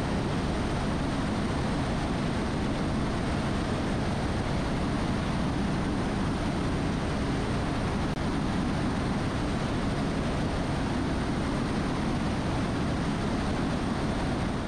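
Airbus AS350 B3e Esquilo single-turbine helicopter running steadily, a dense rotor and engine noise with a fine rapid flutter in the low end and a thin steady high turbine whine over it.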